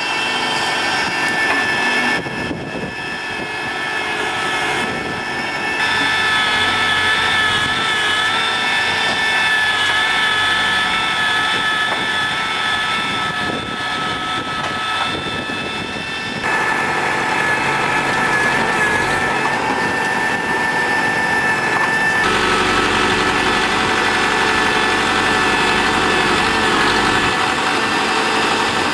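TAFE tractor's diesel engine running steadily under load as it works a backhoe, with a steady high whine over the engine; the sound shifts abruptly a few times.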